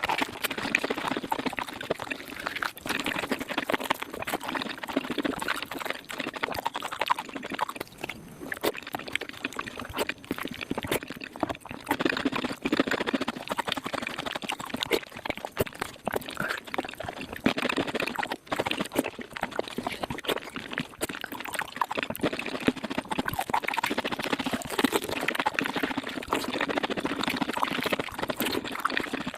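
Mukbang eating sounds played back at five times normal speed: a dense, unbroken stream of wet mouth clicks, smacks and slurps.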